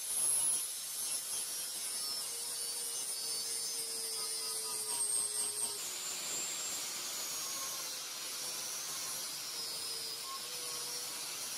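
Angle grinder running with an abrasive disc against steel: a steady grinding hiss with a high whine that sags slowly in pitch as the disc bites.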